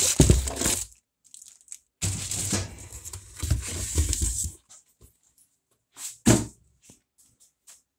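Plastic bag crinkling and rustling against a cardboard box as it is handled, in two stretches: one under a second, one about two and a half seconds. A single knock about six seconds in.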